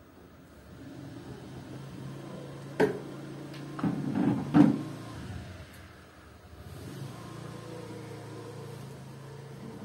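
A steady low motor hum, with a few sharp knocks around the middle, the loudest about four and a half seconds in.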